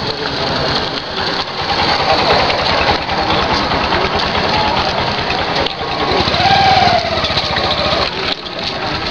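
An engine idling close by with a fast, even chugging beat.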